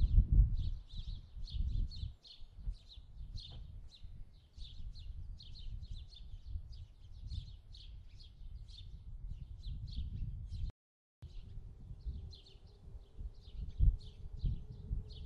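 Small birds chirping rapidly and continuously in short repeated chirps, over a low, irregular rumble. The sound cuts out for a split second about eleven seconds in.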